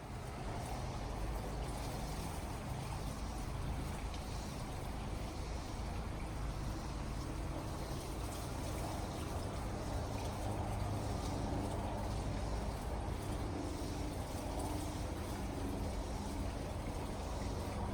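Water trickling steadily, over a low rumble.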